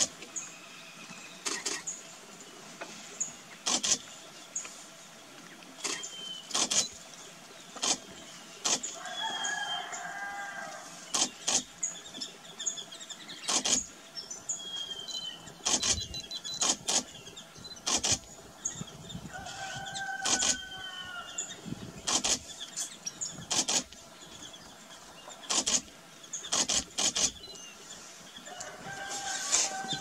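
Greater yellownape woodpecker pecking and chiselling into dead wood: sharp, irregular taps, sometimes in quick pairs, roughly one every second or two. Other birds call faintly in the background.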